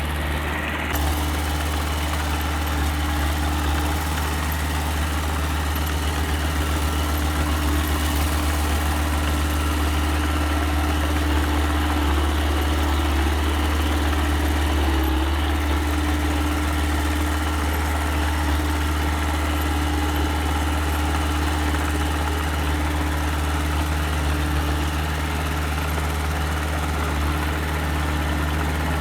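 Engine of a small earthmoving machine running steadily with a deep, even drone, with no clear revving or impacts.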